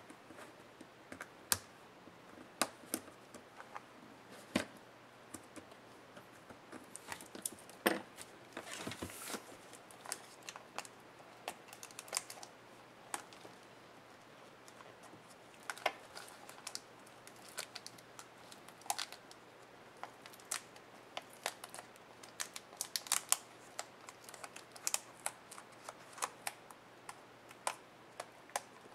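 Irregular small clicks and taps of plastic and metal parts being handled as a ThinkPad E550's LCD panel is pried loose, lifted out of the display lid and its video cable connector is worked at. A longer rustling scrape comes about seven to ten seconds in, and the clicks come thicker near the end.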